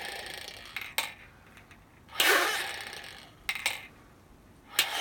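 Forceful breaths blown through the mouthpiece and tube of a three-ball incentive spirometer: three rushes of air, each fading over about a second. Between them the plastic balls give short sharp clicks in their chambers.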